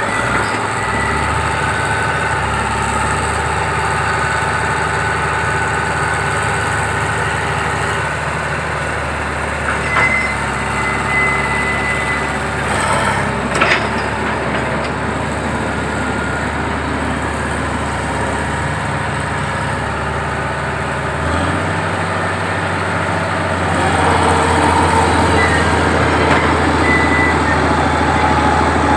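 Heavy diesel machinery engine running steadily, with a couple of short metallic knocks in the middle; a little past two thirds of the way through the engine note rises and gets louder, as if revving up.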